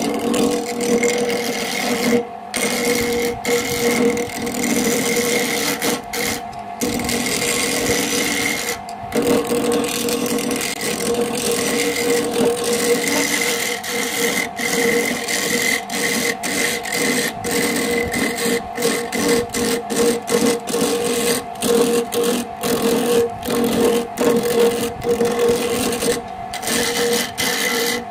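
Small wood lathe running with a steady motor whine while a hand-held turning tool scrapes and cuts a spinning wooden handle blank. The sound is broken by many brief gaps.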